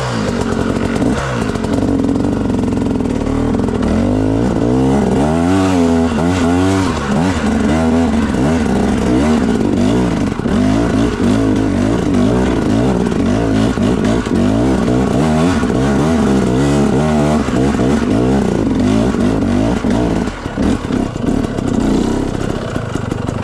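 Dirt bike engine running under load, its pitch climbing and falling over and over as the throttle is opened and closed.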